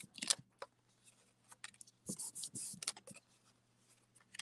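Soft rubbing and dabbing on a silicone craft mat as a wad of sticky adhesive is twisted and pressed over it to lift leftover mess. It comes in two short spells of faint scuffing with small ticks, near the start and again about two seconds in.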